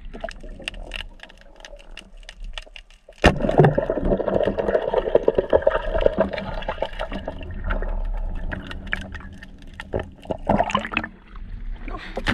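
Water rushing and gurgling around a camera held underwater, starting suddenly about three seconds in, with scattered sharp clicks throughout.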